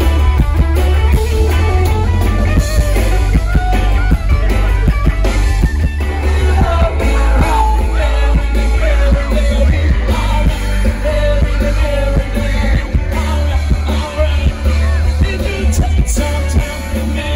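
Live rock band playing loud through a PA, with electric guitars, heavy bass and drums, and a man singing hard into a handheld microphone.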